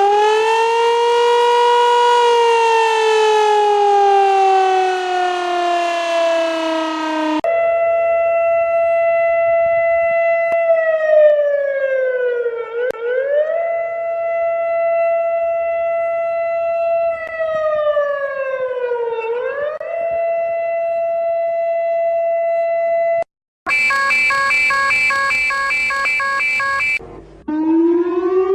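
Remade emergency alert alarm: siren-like electronic tones. It opens with a slow falling wail, then switches to a steady tone that dips down and slides back up twice. After a brief cut comes a buzzing chord of several tones, and near the end a rising wail begins.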